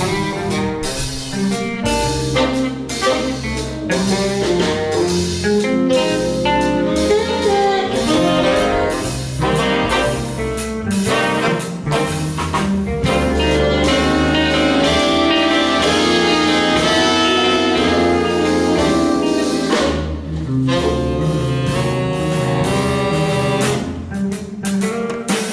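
Jazz band of trumpet, alto, tenor and baritone saxophones, electric guitar, double bass, piano and drums playing an arrangement, the horns sounding sustained chords together over bass and drums, with a short break around two-thirds of the way through before the ensemble comes back in.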